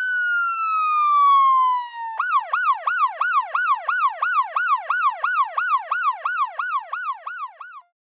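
Electronic emergency-vehicle siren: a slow wail falling in pitch, then about two seconds in it switches to a fast yelp of about three to four rising-and-falling sweeps a second, which cuts off abruptly near the end.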